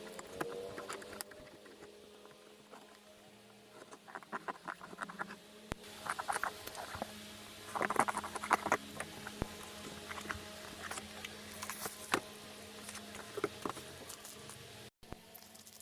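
Hands handling and opening packaging: scattered small clicks, taps, scratches and crinkles, busiest around the middle, over a faint steady hum.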